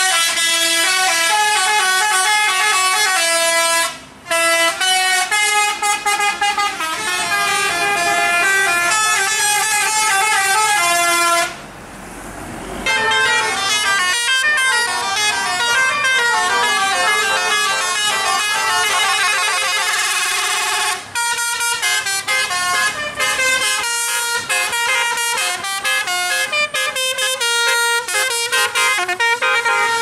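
Indonesian bus 'telolet basuri' musical horns playing fast multi-note tunes, the notes hopping up and down in quick runs. The horn tunes break off briefly about four seconds in and again about twenty-one seconds in. Around twelve seconds in there is a short stretch of rushing noise.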